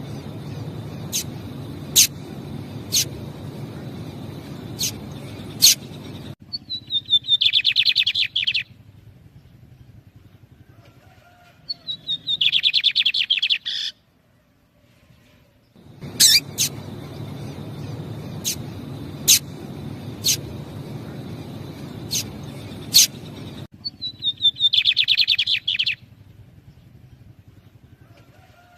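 Lined seedeaters (bigodinhos): single sharp call notes about once a second over a low background rumble, answered by a fast two-second trill of notes, the exchange coming round twice.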